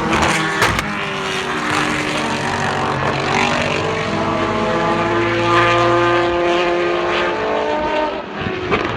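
Old-era Formula 1 engine running at very high revs, a high-pitched scream whose pitch slides slowly down over several seconds. A few sharp cracks come near the start and again near the end.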